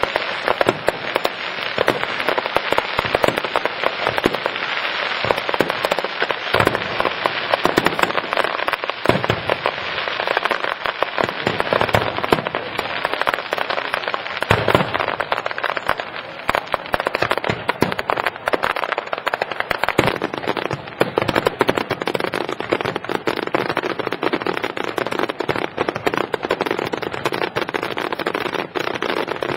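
Aerial fireworks display: a dense, unbroken run of crackling and popping bursts, with occasional heavier bangs among them.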